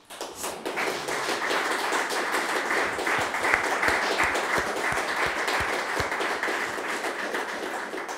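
Audience applause: many hands clapping together, steady throughout and easing off slightly near the end.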